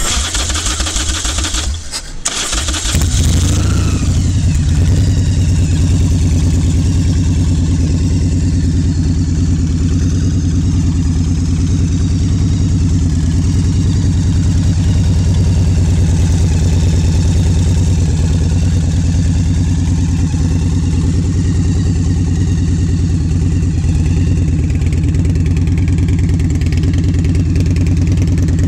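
Big Dog Bulldog trike's air-cooled V-twin engine started: a couple of seconds of cranking, the engine catching about three seconds in, then idling steadily.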